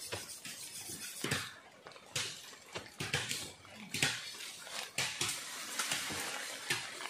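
Bamboo poles and wooden stakes knocking together at irregular intervals as a bamboo frame is handled and fitted, with rustling of leaves and brush between the knocks.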